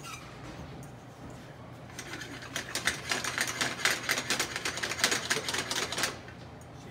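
A fork stirring beaten eggs rapidly in a nonstick omelette pan, clicking and scraping against the pan in a fast run of strokes from about two seconds in to about six seconds in. This is the quick scrambling of a classic French omelette as the eggs begin to set.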